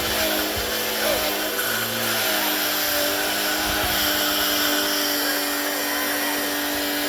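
Tacklife electric pressure washer running, its motor humming steadily over the hiss of the water spray; the hum steps up in pitch a little over two seconds in.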